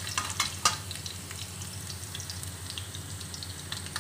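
Sliced garlic sizzling in hot oil in a stainless steel wok while being sautéed until golden brown. A few light clicks of the spatula against the wok come in the first second.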